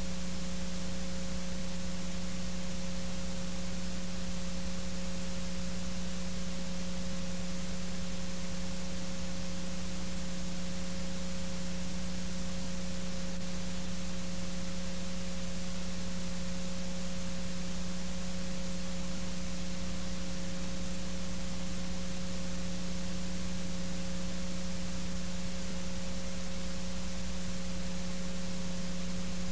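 Steady hiss with a constant electrical hum, the noise of a soundtrack that carries no other sound. It stays unchanged throughout, with no speech, music or events.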